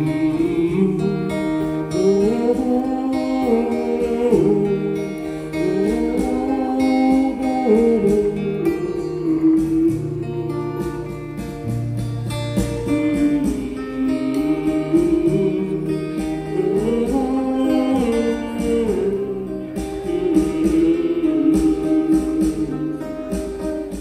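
Live band playing a song: a sung melody in long rising and falling phrases over guitar accompaniment.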